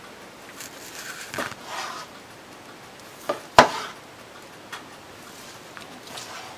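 Chef's knife slicing through a baked chicken breast held with a fork, knocking against a plastic cutting board: a rough slicing stretch in the first two seconds, then a sharp knock about three and a half seconds in, the loudest, and a few lighter taps after.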